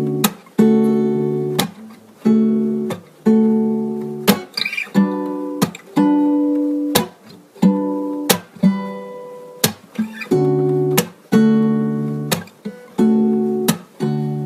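Acoustic guitar strumming chords, each struck about once a second and left to ring out and fade.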